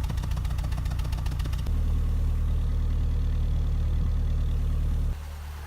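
Exhaust of a 1999 Ford Contour idling, heard at the tailpipe. First comes an uneven pulse with irregular clicking puffs, the sign of a misfiring cylinder. After a cut about two seconds in, it runs as a steady, even pulse, showing the misfire is gone with the new coil pack. Near the end it cuts to a quieter engine sound.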